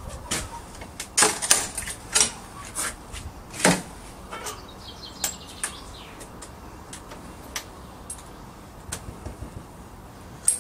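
Scattered knocks, taps and clicks from an old wooden back door and its fittings being handled. They come thickest in the first few seconds, then thin out to occasional light ticks.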